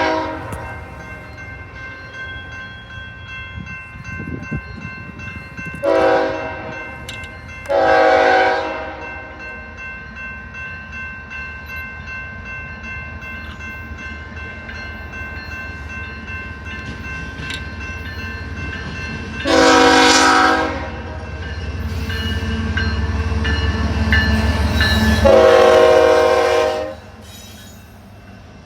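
Freight locomotive horn, a BNSF ES44C4 leading, sounding a series of chords: a short blast, then a longer one about two seconds later, then two long blasts about five seconds apart. Under them, the low rumble of the diesel builds and then drops off sharply near the end.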